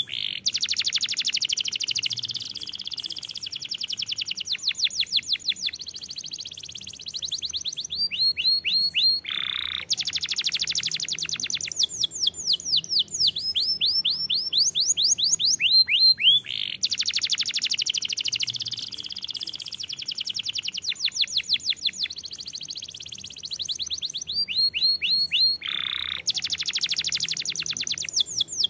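Domestic canary singing a long, nearly unbroken song: fast trills and rolls of rapidly repeated notes, alternating with strings of quick sweeping whistles.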